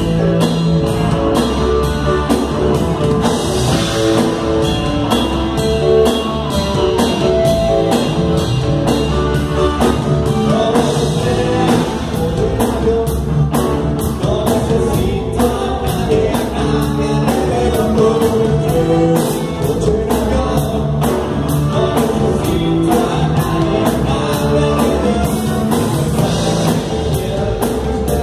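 Live rock band playing: electric guitar, bass guitar and drum kit with a steady beat, and a voice singing over them.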